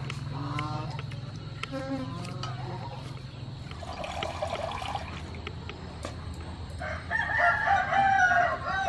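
A rooster crowing, with the loudest, longest crow near the end after shorter calls earlier on.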